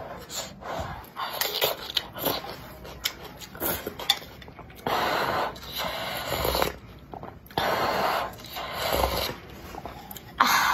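Eating noises: noodles slurped off chopsticks in short bursts, then broth slurped from the bowl in two long draws of about a second and a half each, around five and eight seconds in.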